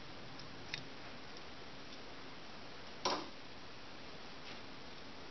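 Steady low hiss of room tone, with a faint click under a second in and a single sharper tap about three seconds in.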